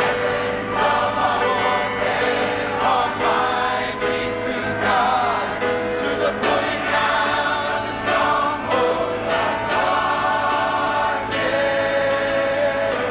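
Large mixed choir of men and women singing a gospel song in harmony.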